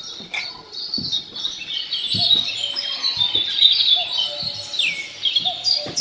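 Several birds chirping and twittering together in a dense dawn chorus, marking daybreak, with a few short knocks.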